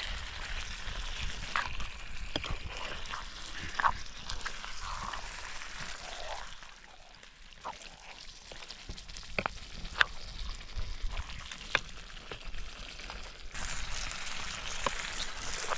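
Food sizzling in hot oil in a pan, with sharp crackles and pops. The sizzle dies down for several seconds in the middle, leaving scattered single pops, then picks up again near the end.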